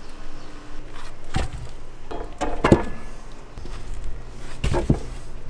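A few irregular knocks and clatters of objects being handled, the loudest about two and a half seconds in, over a steady low hum.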